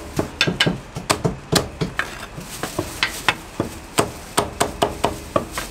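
Heavy Chinese cleaver chopping roast poultry on a thick wooden chopping block: rapid, irregular knocks, about five a second.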